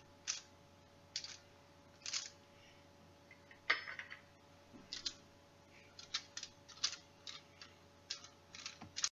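Light taps and dabs of a basting brush coating raw meatballs with olive oil on a foil-lined baking sheet: a dozen or so brief, irregular clicks. The loudest, about four seconds in, comes as the brush knocks into a small metal cup of oil.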